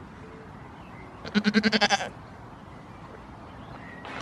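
A goat bleats once, about a second in: a wavering bleat lasting just under a second.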